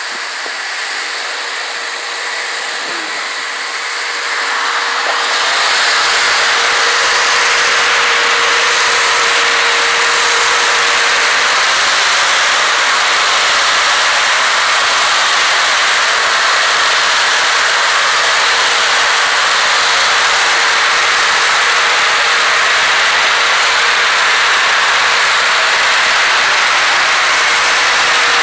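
Shop-Vac wet/dry vacuum running steadily: a loud rushing hiss with a faint motor whine, growing louder over the first few seconds and then holding level.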